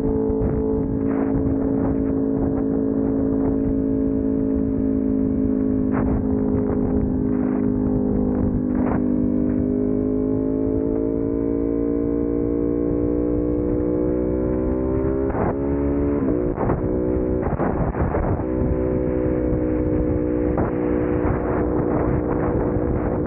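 Ducati Panigale V2's 955 cc L-twin engine droning through a full titanium aftermarket exhaust at highway speed, with wind noise on the helmet microphone. Midway the engine note rises gradually as the bike accelerates, then holds steady at the higher pitch, with a few gusts of wind noise as it does.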